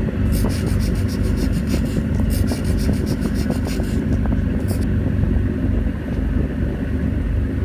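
Steady low rumble aboard a moving ship, its engines mixed with wind on the microphone, with a fluttering hiss over the first few seconds.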